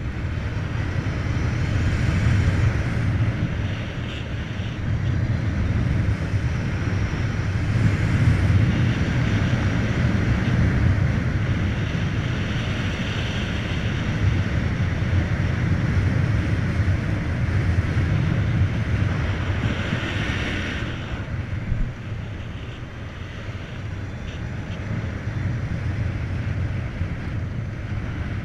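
Wind rushing over the microphone, with road and tyre noise, from a Volta BCN Sport electric motorcycle being ridden at speed. The rush swells and eases with the riding and drops off a little past the two-thirds mark.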